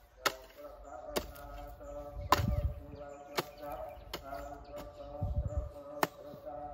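Sharp knocks at about one a second, with a couple of duller low thumps, over steady background tones.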